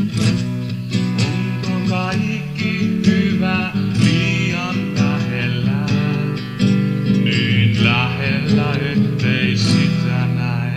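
Instrumental break of a folk-style song: acoustic guitar strumming chords while a harmonica plays a melody over it. The sound fades away just after the break ends.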